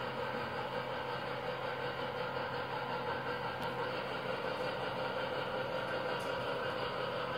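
O scale model circus train cars rolling along the track, giving a steady, even rumble.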